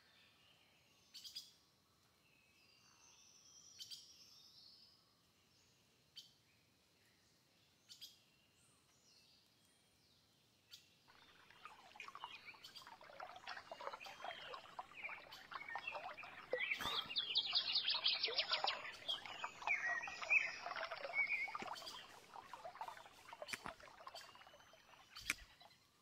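Scattered bird chirps over quiet forest ambience, then from about eleven seconds in, water pouring and splashing into a waterlogged pit on ground flooded by spring meltwater, loudest in the middle and fading near the end.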